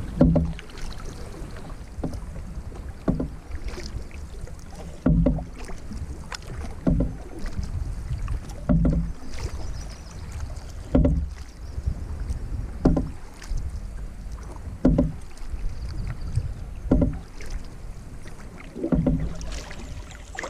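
Canoe paddle strokes, a short splashing pull through the water about every two seconds, over a steady low rush of water and wind.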